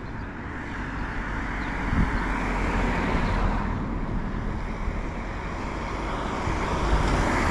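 Road traffic: cars driving past, their tyre and engine noise swelling and fading, once about two to three seconds in and again near the end.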